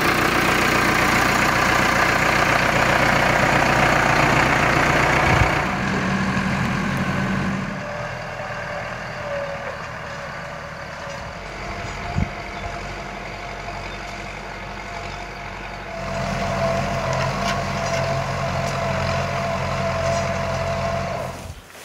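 Massey Ferguson tractor's engine running while the tractor pulls a disk harrow, louder in the first few seconds and again in the last third. A single knock sounds about twelve seconds in, and a steady whine runs through the second half.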